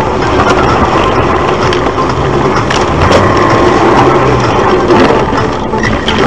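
Car running off a snowy road across a rough, snow-covered field: loud rumbling and crunching of tyres and body over the frozen ground, with scattered knocks.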